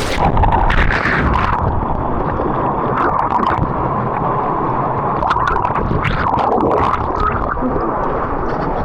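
Muffled, dull rushing and gurgling of water heard from under the surface, with faint bubbly clicks, as a waterproof camera goes under in a waterfall pool. The sound dulls suddenly just after the start.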